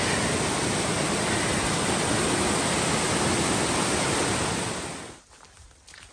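Amicalola Falls' white water rushing down over rock: a steady, loud, even rush of falling water. It fades away about five seconds in.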